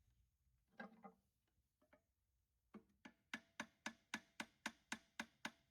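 Light tapping on a motor pulley seized on its shaft, struck to loosen it: two taps about a second in, then from about three seconds an even run of taps about four a second, each with a faint metallic ring.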